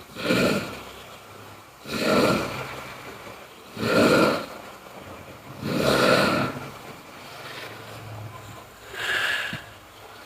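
A person snoring loudly, one rasping snore about every two seconds, five in all, with a longer pause before the last.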